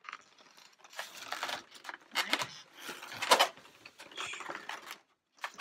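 Inflated chrome latex modelling balloons rubbing and squeaking against each other as a braided balloon tail is handled and turned, in irregular scratchy rubs that stop abruptly near the end.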